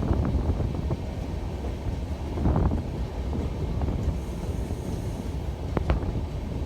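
Train running with a steady low rumble and a few sharp knocks, the sharpest near the end.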